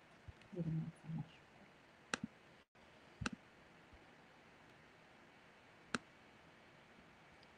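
Computer mouse clicks: a few sharp single and double clicks, a second or more apart, over faint room tone, as a presenter tries to advance a slideshow that has frozen. A brief low hum about half a second in.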